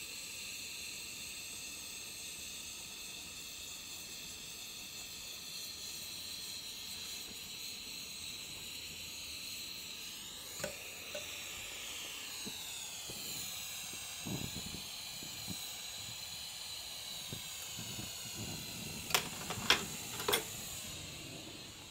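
Steady hiss of a torch flame heating copper in a melting dish, with a small click about eleven seconds in and a few sharp knocks near the end.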